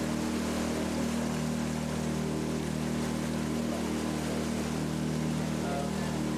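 A boat's engine running at a steady speed: an even, low drone that does not change while the boat moves along.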